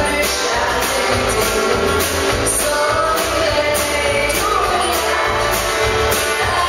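Live country band: a woman singing into a microphone over bass guitar, fiddle and drums with a steady beat, through a PA.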